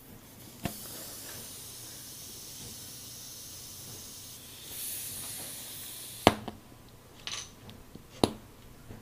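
Air hissing steadily out of a tire's reamed puncture, growing louder about five seconds in and cutting off about a second later. A sharp click comes just before the hiss and two more sharp clicks follow it.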